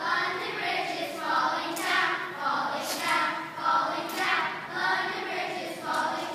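A group of young children singing a nursery rhyme together.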